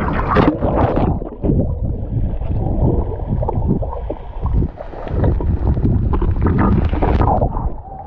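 Sea water sloshing and splashing against an action camera held by a swimmer on a selfie stick. The sound turns dull and gurgling while the camera is underwater in the middle, with sharper splashes near the start and near the end as it breaks the surface.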